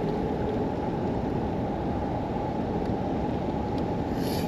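Steady low rumbling noise, with a brief faint hiss about four seconds in.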